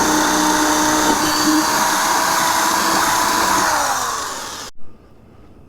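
Electric drill running steadily as it bores a mounting hole through a hard motorcycle saddlebag, its pitch falling as it winds down before cutting off suddenly a little before the end.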